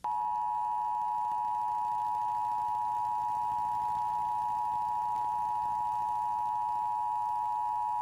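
Emergency Broadcast System Attention Signal: the steady two-tone alert (853 and 960 Hz sine tones sounded together), held unbroken as part of a broadcast EBS test.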